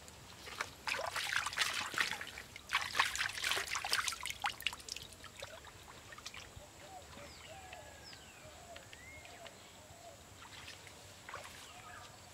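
Water splashing and sloshing in a shallow stream as a banana flower is rinsed by hand, for the first few seconds.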